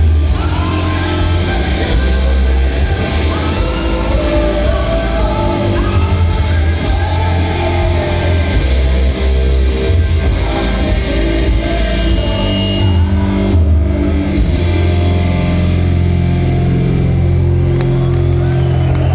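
A rock band playing live, with a singer over electric guitar, heavy bass and drums.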